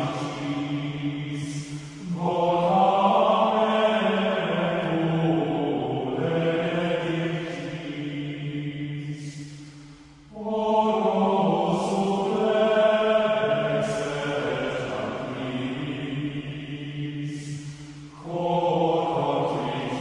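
Background music of long, sustained layered tones over a steady low drone, swelling in phrases that start afresh about every eight seconds.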